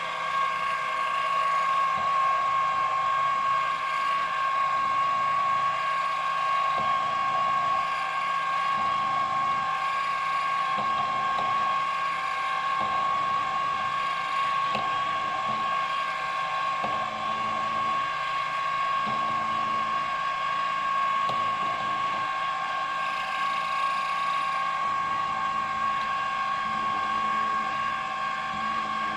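A small milling machine's spindle starts up abruptly and runs with a steady high whine while a small end mill drills an angled steam hole through a model steam whistle part.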